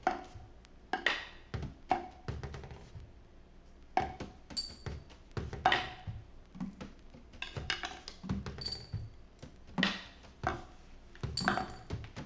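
Loose, free-form drum kit playing: scattered drum hits and cymbal strikes at an uneven pace, with no steady beat.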